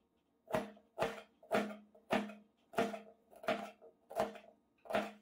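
A crinkle-cut chopper blade cutting through raw celeriac and knocking on a wooden cutting board. There are eight chops in a steady rhythm, a little under two a second, and each knock rings briefly.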